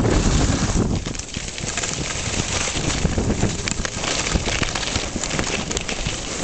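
Wind buffeting the microphone, with skis hissing and scraping over packed snow during a downhill run.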